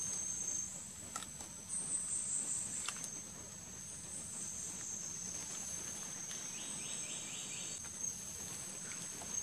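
Forest insects shrilling steadily in two high-pitched tones, with a faster pulsing insect call joining briefly about two-thirds of the way in.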